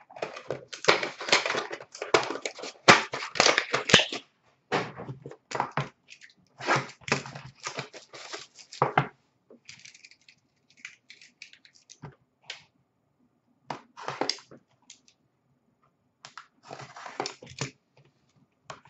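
Clear plastic shrink wrap crinkling and tearing as it is ripped off a sealed trading-card box and crumpled by hand. It comes in dense bursts through the first half, then scattered lighter crackles and clicks of handling, with another crinkly burst near the end.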